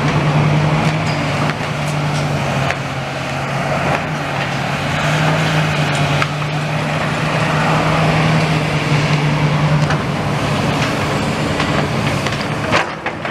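A large engine running steadily at one pitch; the hum fades out about ten seconds in. A few sharp knocks and clatter are heard over it.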